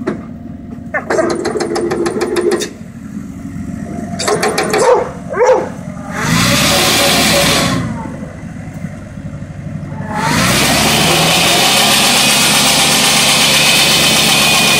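A mobile bandsaw sawmill's engine speeds up, then its blade cuts into a western red cedar log. The loud, steady cutting noise begins about ten seconds in, after a shorter loud burst at about six seconds. Before that, the engine runs quietly under some short, unclear sounds.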